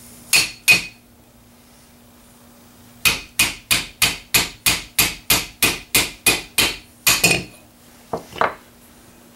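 Metal pin punch being tapped to drive out the bolt buffer pin of a Ruger 10/22 receiver: two sharp strikes, a pause, then a run of about a dozen even taps at about three a second, and two softer taps near the end.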